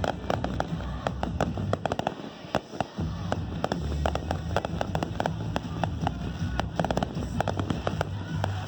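Fireworks going off in quick succession: many sharp cracks and pops, several a second, over a low rumble.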